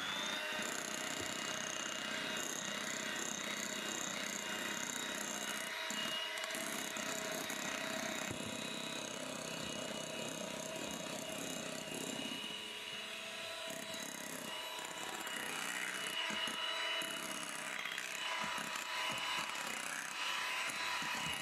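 Electric hand mixer spinning up with a rising whine, then running steadily as its beaters whip cream in a glass bowl.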